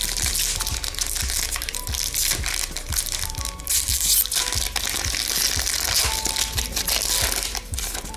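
Crinkling, crackling foil wrapper of a hockey card pack, handled and crumpled as the cards are pulled out of it, with quiet background music.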